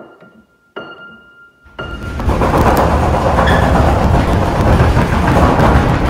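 One high piano key is struck three times, each note ringing briefly. Then, just under two seconds in, a loud continuous rumbling rattle sets in: the house's doors shaking in their frames.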